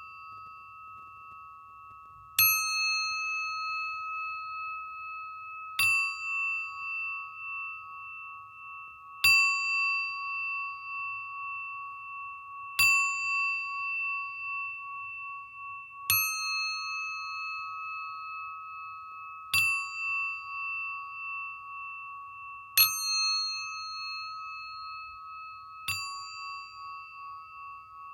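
Singing bowl struck eight times at an even pace of about one strike every three and a half seconds. Each strike rings on in a sustained, slowly wavering hum under a bright shimmer that fades within a second or two.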